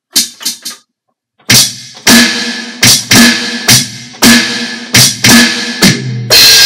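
Three quick sharp clicks, then an Alesis electronic drum kit played in a slow beat of drum hits about every half second to a second, ending on a crash cymbal that rings out.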